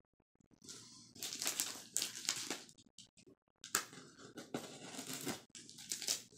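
Scissors cutting into the packing tape on a cardboard shipping box, with tape tearing and plastic crinkling, in two stretches with a short pause between.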